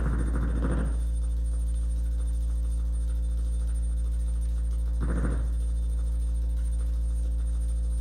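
A steady low hum with several even tones held above it, broken twice by short bursts of rustling noise: once at the start and once about five seconds in.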